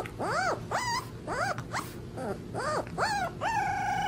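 Young puppy howling: a run of short calls that each rise and fall in pitch, then about three and a half seconds in, one long held howl.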